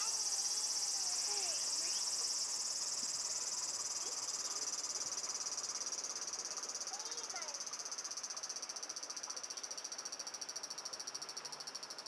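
A chorus of cicadas buzzing in a dense, high-pitched, fast-pulsing drone that slowly grows quieter, which the uploader puts down to the cicadas sensing someone nearby.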